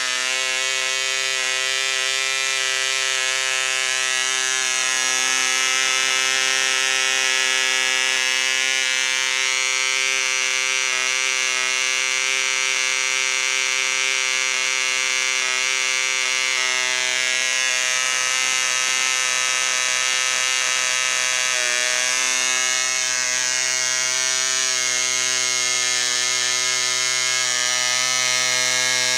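Homemade 1.6 cc twin-cylinder boxer model diesel engine running with its propeller, a steady high-pitched buzz. It runs poorly: the owner finds the rear cylinder fills better, so the front cylinder barely fires.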